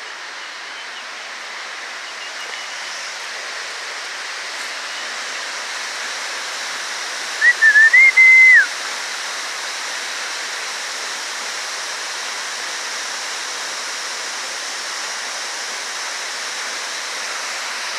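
Waterfall: a steady rush of falling water that grows slightly louder. About seven and a half seconds in, a loud whistle of just over a second rises above it, wavering and then holding a high note before dropping off.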